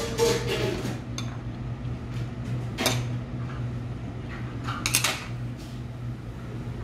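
Metal chopsticks clicking against dishes a few times while a lettuce wrap is assembled: a cluster of clinks in the first second, one about three seconds in and a double clink about five seconds in, over a steady low hum.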